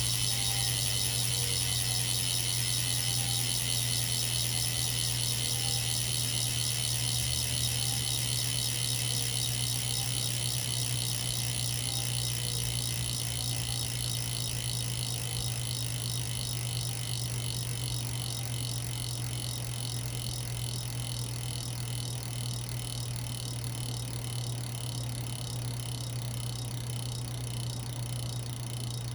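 Freehub of a Roval Rapide CLX40 rear wheel clicking fast and evenly as the wheel coasts on a bike stand, over a steady low hum. The clicking slowly fades as the wheel spins down.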